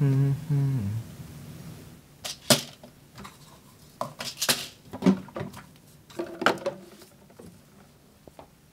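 A voice is heard briefly at the start. Then come a scattered series of sharp clicks and light clinks over several seconds: a small plastic medicine bottle and other small items being handled on a countertop.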